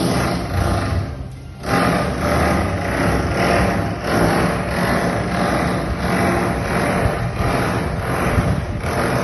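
Construction machinery running with a noisy, rhythmic pulse about twice a second. The sound breaks off and starts again about a second and a half in.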